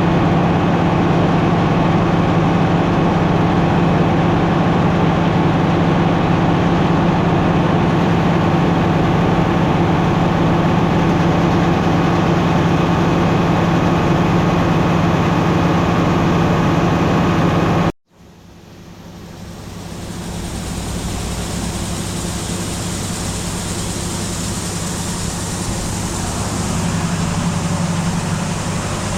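A steady engine sound with a fixed low hum, which cuts off abruptly about two thirds of the way through; a different steady engine sound then fades up and runs on.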